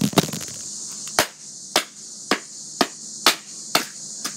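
A bare hand striking a piece of cardboard box again and again, sharp blows in an even rhythm of about two a second. A steady high chirring of insects runs behind.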